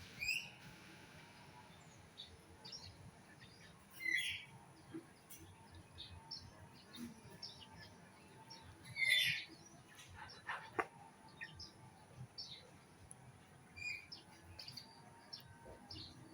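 Birds chirping: scattered short, high calls, the loudest about four and nine seconds in.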